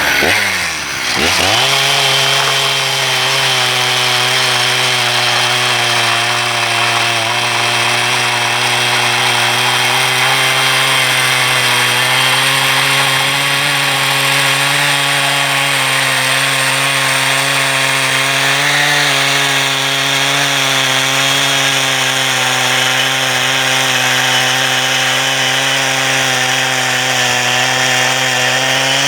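Two-stroke chainsaw running at full throttle while cutting through wood, its engine note steady under load. About a second in, the pitch drops as the chain bites into the cut, then holds level.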